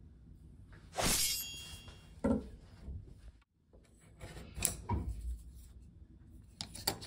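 Wooden chopsticks being laid down and handled on a cutting board: a handful of sharp knocks and clacks. The loudest is a knock about a second in, which rings briefly.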